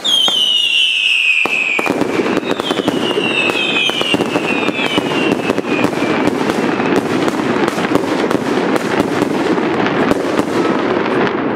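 Consumer firework battery firing at close range: a loud whistle falling in pitch as the first shots go up, a second falling whistle a few seconds in, then dense crackling from the crackling-star bursts overhead.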